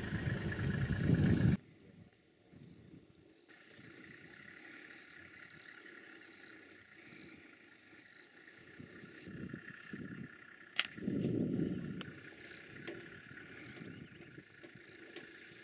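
A 4x4 pickup's engine running as it drives off through grass, cut off abruptly after about a second and a half. Then insects chirp in short high-pitched bursts, repeating every half second or so, over quiet grassland, with one sharp click about eleven seconds in.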